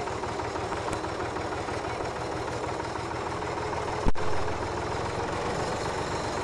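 Massey Ferguson 260 tractor's three-cylinder diesel engine running steadily while it pulls a tine cultivator through sandy soil, with one sharp knock about four seconds in.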